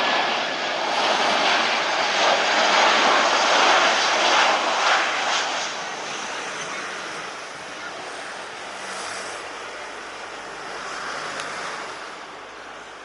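Jet airliner's engines on take-off, a loud rushing roar that is strongest for the first five seconds or so and then fades away as the plane climbs off.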